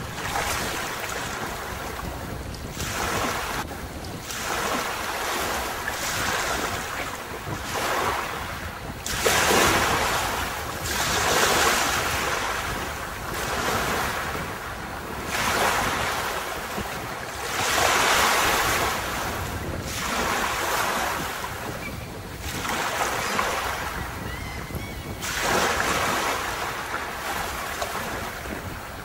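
Sea waves breaking and washing up a beach, each surge swelling and falling away every two to three seconds, the loudest about a third of the way in and again past the middle, over a steady low wind rumble.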